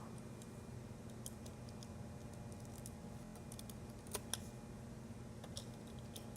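Faint, scattered clicks and taps of plastic Lego pieces being handled, with two sharper clicks about four seconds in.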